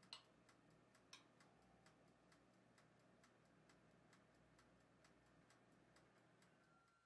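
Mechanical timer of a Jin Kon JK-7450 electric oven ticking faintly and evenly, about three ticks a second, with two louder clicks near the start, about a second apart.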